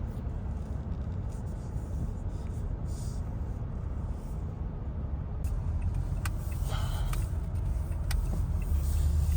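Road noise inside a moving car's cabin: a steady low rumble of engine and tyres that grows a little louder near the end, with a few light clicks in the second half.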